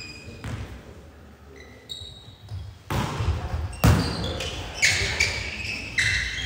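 Volleyball rally on an indoor court: four sharp slaps of hands on the ball, about a second apart, starting about three seconds in, with brief high squeaks and players' voices between them.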